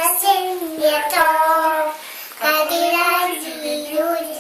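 A toddler singing in a high voice, wordless syllables in a sing-song tune, with a brief pause about two seconds in.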